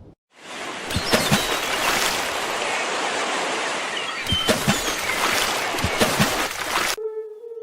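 Loud, steady rushing noise with a few sharp knocks scattered through it. Near the end it cuts abruptly to a steady, pitched wail.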